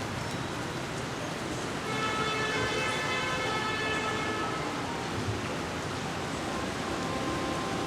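Heavy rain falling steadily. About two seconds in, a steady pitched tone rises over it from the street and fades out about two and a half seconds later.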